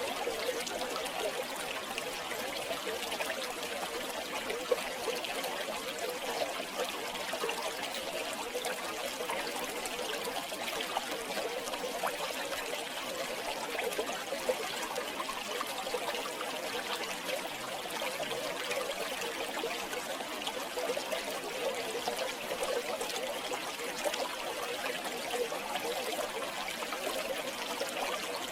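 A river flowing and trickling over stones, a steady babbling wash of water.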